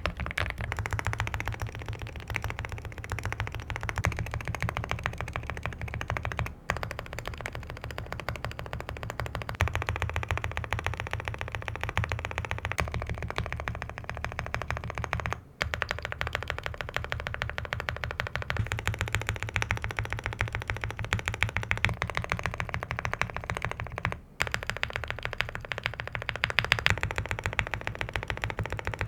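Fast continuous typing on an Aula F75 mechanical keyboard with linear switches, dense clacking key strokes. It breaks off briefly three times as the recording moves on to another switch set.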